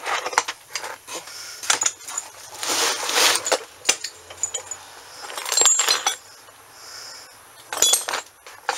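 Hands rummaging through a pile of loose small metal parts, with irregular clinks and rattles and a longer shuffling scrape about three seconds in.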